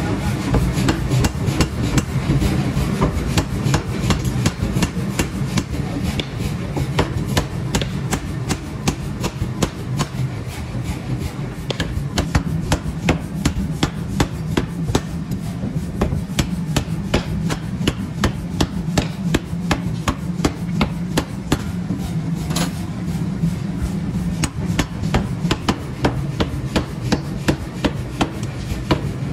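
Power forging hammer striking a red-hot steel block on its anvil in rapid, evenly spaced blows, several a second, over a steady low machine hum.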